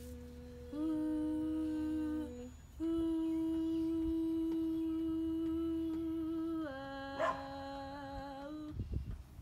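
Voices humming long held notes: a low note, briefly joined by a second, higher note, then a higher note held for about four seconds and a lower one to finish.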